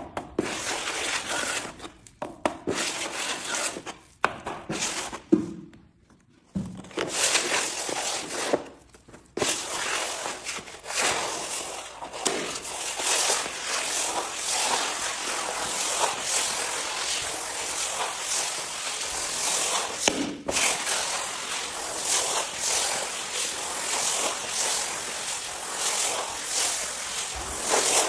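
Wide steel spatula mixing wood-dust filler paste and scraping it across an oak parquet floor to fill the seams. Gritty stroke after stroke, in separate strokes with short pauses at first, then almost without a break from about nine seconds in.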